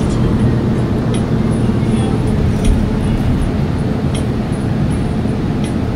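Steady engine and road noise inside a moving city bus, with a few brief clicks or rattles.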